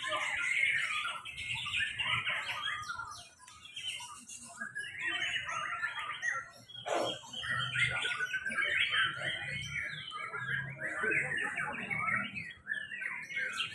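Several white-rumped shamas (murai batu) singing at once: a dense, varied tangle of fast whistles and chirps, which thins out briefly about three seconds in and then builds up again.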